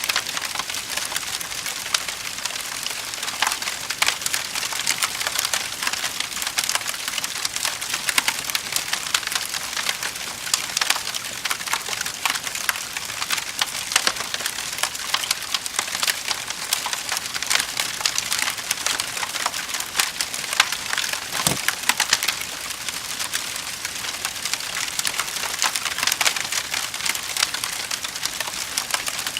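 Wood fire burning in a fireplace, crackling steadily with dense small pops and snaps, and one sharper pop a little past two-thirds of the way through.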